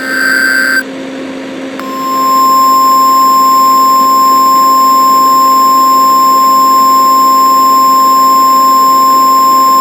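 The last of a run of buzzy Emergency Alert System data bursts ends under a second in. A steady single-pitch alert tone of the NOAA Weather Radio kind starts about two seconds in and holds, with a low hum underneath.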